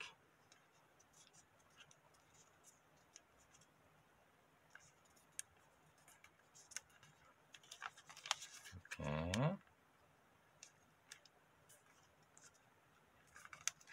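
Colour paper being handled and creased: faint scattered crinkles and clicks, busiest around eight seconds in. There is a brief vocal murmur about nine seconds in.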